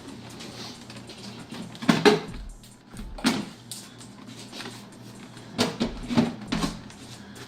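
Scattered clicks and knocks of hand tools and plastic trim being worked on a car door while its interior panel comes off: a cluster about two seconds in, one more a little later, and several in a row near the end.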